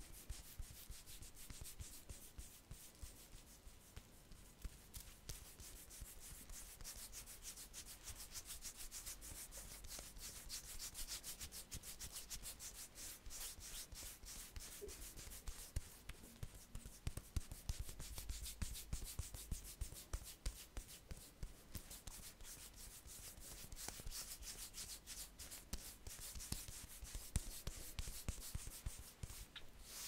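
Fingertips and long fingernails rubbing and scratching over the bare skin of a man's neck and shoulders, close to the microphone: a steady run of many quick, soft, scratchy strokes.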